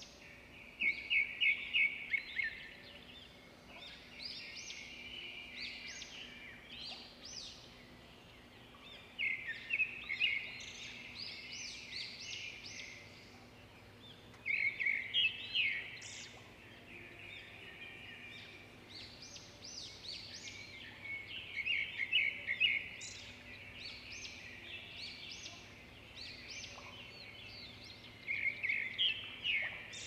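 Woodland songbirds singing. A loud run of rapid high chirps comes back about every six to seven seconds, with fainter birdsong in between.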